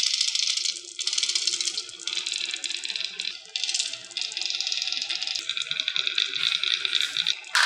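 Marbles and small toy vehicles rattling down a wooden marble run, a dense, fast clatter of clicks that changes abruptly every second or so.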